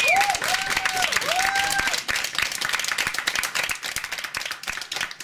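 Small audience clapping, with a few rising-and-falling whoops in the first two seconds; the applause thins out and fades after that.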